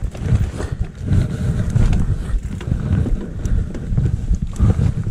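Mountain bike riding down a rough trail: wind buffeting the microphone over the rumble and rattle of the bike, with scattered sharp clacks.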